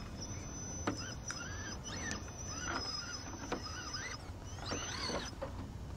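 Brushless motor of an RC scale rock crawler whining in short bursts of throttle, the pitch rising and falling with each burst, as the truck struggles for grip on a slick, muddy rock. Two sharp clicks come between the bursts, about a second in and past halfway.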